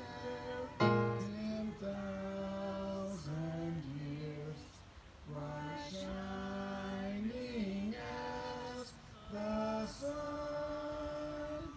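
Hymn singing led by a woman's voice, a slow melody of long held notes with short breaks between phrases.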